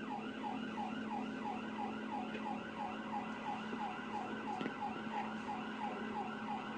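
Police siren in rapid yelp mode, its pitch rising and falling about three times a second, over a steady low hum.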